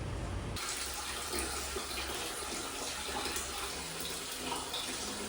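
Mountain stream rushing steadily over rocks, setting in a moment after the start.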